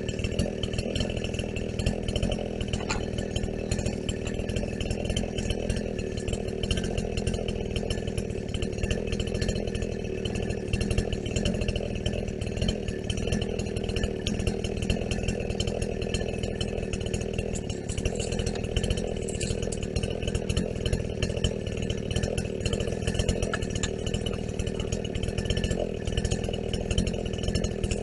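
Two-stroke Husqvarna chainsaw running steadily without a pause, cutting the limbs off a felled tree.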